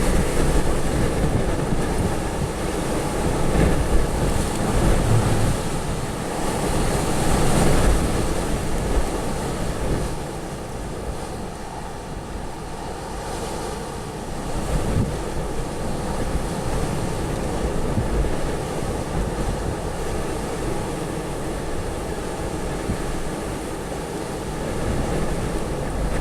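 Storm wind blowing in strong gusts, loudest in the first eight seconds and then steadier, with wind rumbling on the microphone.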